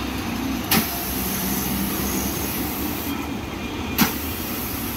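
Pressure washer with a triplex plunger pump and 3 HP electric motor, the motor and pump running with a steady hum. The spray gun fires a 15-degree jet twice, each time starting with a sharp click and a loud hiss: once about a second in for about two seconds, and again about four seconds in.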